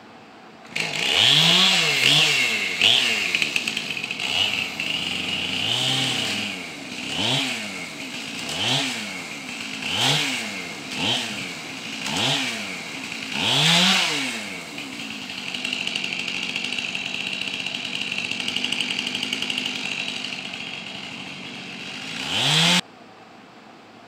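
Gas chainsaw revved over and over, its pitch rising and falling roughly once a second, then held at a steady high speed for several seconds while cutting up wood. It starts suddenly about a second in and cuts off abruptly near the end.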